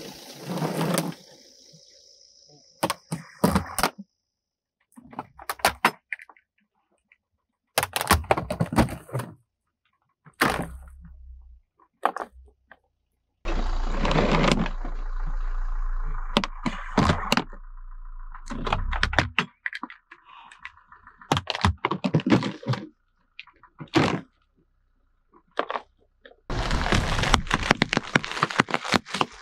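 Sharp cracks, snaps and crunches of hard plastic and wrapped biscuit packets being crushed under a car tyre, in short bursts broken by sudden silences. A low rumble runs under the crushing for several seconds midway, and near the end there is dense crunching as the Oreo packets burst under the wheel.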